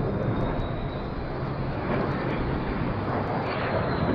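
Aircraft engine running steadily, with a faint thin high whine over the engine noise.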